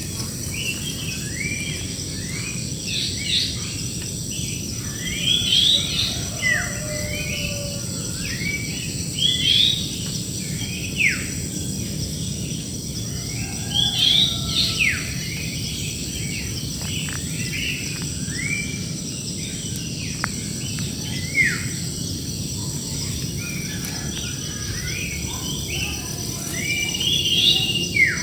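Several birds singing and calling over one another, with short chirps and quick downward-sliding whistles, over a steady high insect buzz.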